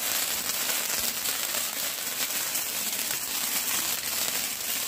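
A firework burning with a steady crackling hiss, with no bang.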